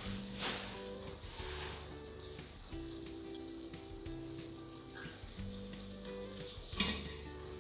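Vetkoek dough frying in hot oil in a stainless steel pot: a faint steady sizzle. Near the end, a sharp clink as the utensil knocks against the pot.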